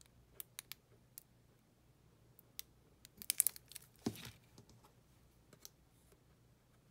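Light handling noises of a paper card and a plastic glue bottle: scattered small clicks and taps, a short burst of paper crinkling about three seconds in, and a soft knock just after four seconds.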